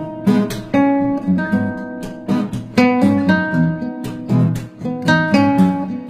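Background music: acoustic guitar playing a run of plucked notes and chords, each note struck sharply and left to ring.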